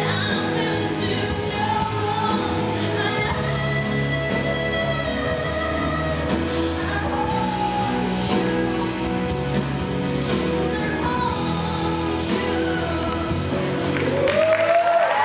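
A recorded song with singing playing through a hall's sound system. As it ends, about a second before the end, the audience starts clapping and whooping.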